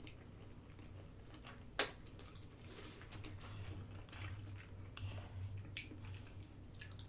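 A person chewing food quietly, with soft wet mouth sounds, and one sharp click about two seconds in.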